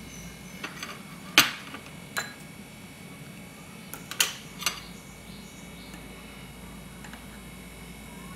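Scattered sharp clicks and clinks of kitchen scissors, plates and pastries being handled: a few about a second in, the loudest soon after, and a cluster around four seconds. A steady low hum runs underneath.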